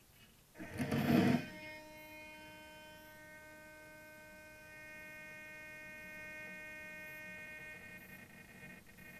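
A brief loud rustling burst about a second in, then a steady electrical hum with several high whining tones.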